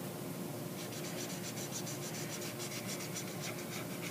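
Marker scribbling quickly back and forth on a paper sticky note, filling in a drawn mustache. The rapid scratchy strokes start about a second in.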